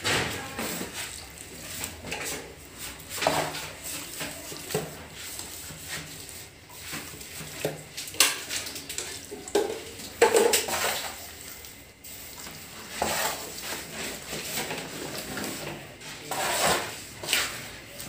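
Irregular clinks, knocks and scrapes of metal hand tools against tile and plaster walls.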